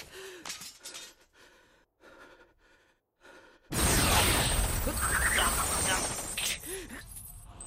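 Animated-film sound effects: a few soft gasps and breaths, then about four seconds in a sudden loud crashing rush as chains with bladed heads shoot out. The rush fades over a few seconds, with a young man's short cry near the end.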